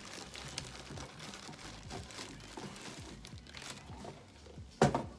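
Paper packing crinkling and a cardboard box being handled and pulled open, with a loud knock near the end.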